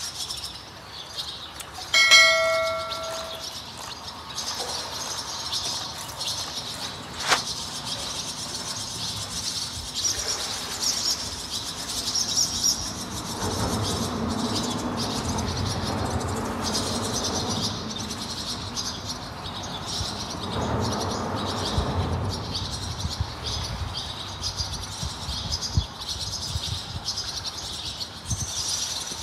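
Small birds chirping steadily over outdoor ambience. About two seconds in comes a short bell-like chime, and in the middle a low rumble swells and fades.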